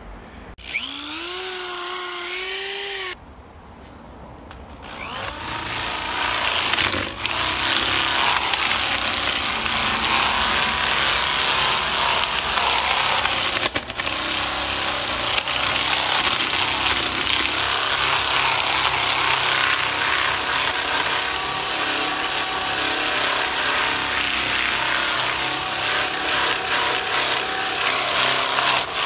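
Drill spinning a sanding mandrel on an extension against carved wood, the sandpaper rasping with the motor's whine under it. A short whine in the first few seconds drops away, and from about five seconds in the sanding runs steadily.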